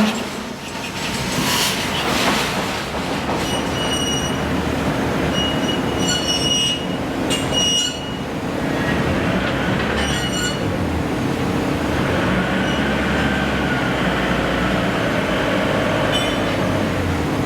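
Forging-shop machinery running with a steady heavy hum, broken by short high-pitched metallic squeals that come several times.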